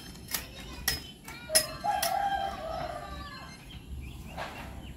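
A rooster crows once, a drawn-out call of about two seconds starting about a second and a half in. Before it come a few sharp clicks as a small knife cuts through leucaena stems.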